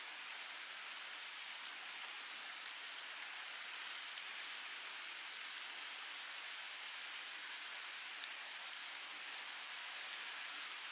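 Steady rain falling, an even soft hiss with a faint drop-like tick now and then.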